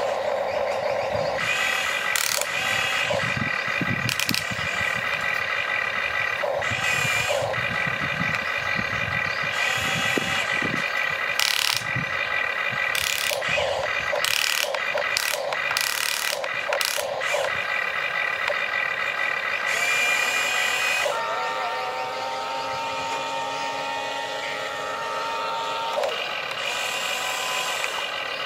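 Huina remote-control excavator's electric motors and gearboxes whining steadily as the boom and bucket work, with scattered clicks and scrapes as the bucket digs into sand. The whine changes pitch about two-thirds of the way through.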